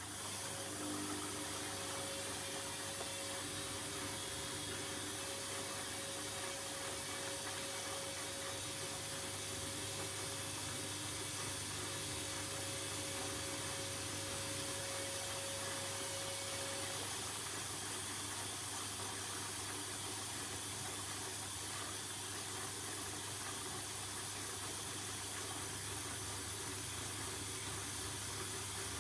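Hoover H-Wash 300 washing machine with water hissing steadily through it over a low hum. A faint steady whine cuts off about seventeen seconds in.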